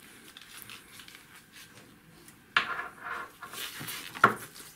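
Handling noise from a tank gunner sight display unit being turned over on a workbench with gloved hands: soft rubbing and shuffling, with a knock a little past halfway and a sharper knock near the end as the housing bumps the bench.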